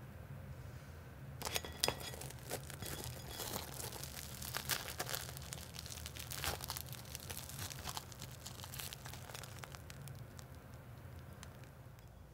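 Crisp fried breadcrumb crust of a mozzarella in carrozza sandwich crackling as hands pull it apart: a dense run of small crackles starting about a second and a half in, thinning out near the end.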